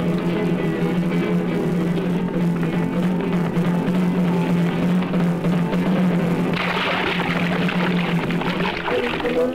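Film score music: a low note held steadily under layered instrumental tones, with a brighter, noisier layer coming in about two-thirds of the way through.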